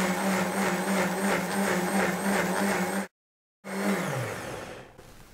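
Countertop blender running steadily, grinding soaked sunflower seeds with water and garlic into a smooth sunflower milk. About three seconds in it breaks off abruptly, then the motor is heard spinning down, its pitch falling, until it stops.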